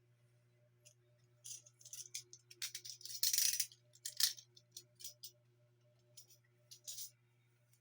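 Hands unpacking the vacuum cleaner: scattered clicks, taps and short rustles of packaging and plastic parts, busiest in the middle with a brief rustle about three seconds in, over a faint low steady hum.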